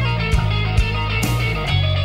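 Rock music: electric guitar over a steady bass line, with drum hits and a cymbal crash.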